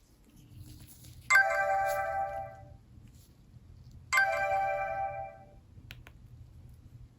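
Nokia N71 ringtone playing through the phone's loudspeaker: a bright, chime-like pitched tone that starts suddenly and fades over about a second and a half, sounding twice, about three seconds apart.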